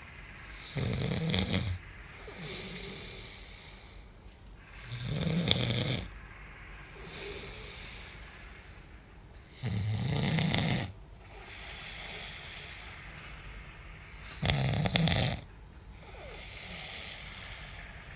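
A sleeping man snoring: four loud, rasping snores about every four and a half seconds, each lasting about a second, with quieter breaths between them.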